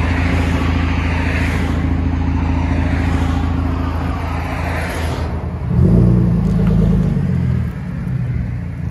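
2016 Ford F-150 V6 exhaust through a Flowmaster Outlaw muffler and straight pipe to a 5-inch tip, heard at the tailpipe. It idles steadily, then a short rev about six seconds in lasts a couple of seconds and drops back to idle.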